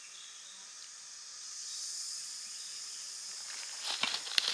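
Steady high-pitched insect drone. Dry leaves crackle and rustle under a hand sorting through leaf litter near the end.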